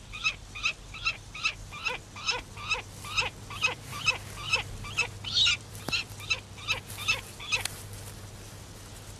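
A bird giving a long run of short, evenly spaced calls, about two and a half a second, that stops abruptly near the end.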